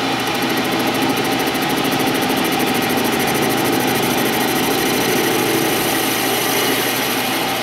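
Metal lathe running while a boring bar cuts inside a spinning DOM steel tube held in a 4-jaw chuck: a steady machine hum with a fast, even ticking over it.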